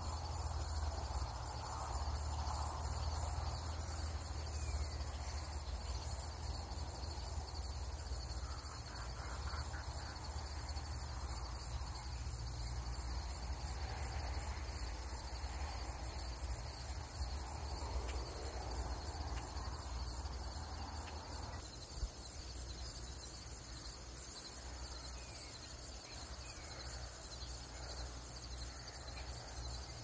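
A steady chorus of insects, several high, thin tones holding unbroken, over soft intermittent rustling of tomato vines being picked through.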